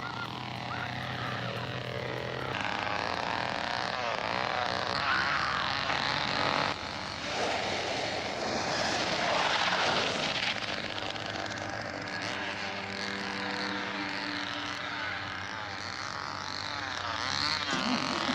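A motor running steadily at a fairly high level, with shifting pitch toward the end.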